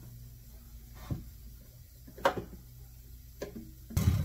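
A few short knocks and clicks of hand tools against a wooden box, the loudest about two seconds in, over a steady low hum.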